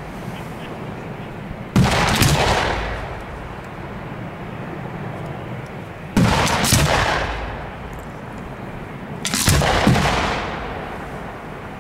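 Aerial firework shells bursting overhead: three loud bangs a few seconds apart, each followed by a rumbling echo that fades over a second or two.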